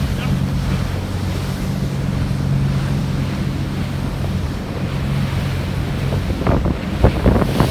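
A boat's engine running with a steady low hum, under wind buffeting the microphone and the rush of water past the hull. A few louder thumps come near the end.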